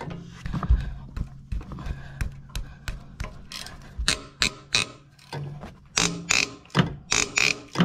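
Socket ratchet working a rusted exhaust manifold bolt on a 7.3 IDI diesel in short, easy strokes, its pawl clicking in short runs that grow thicker in the last few seconds. The bolt is seized in the manifold and is being eased so that it does not snap.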